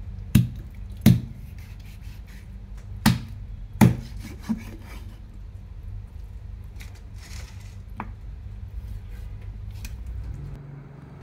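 Cleaver chopping raw chicken drumsticks on a wooden chopping board: six sharp chops, the four heaviest in the first four seconds, then a lighter one and a last one about eight seconds in, over a steady low hum.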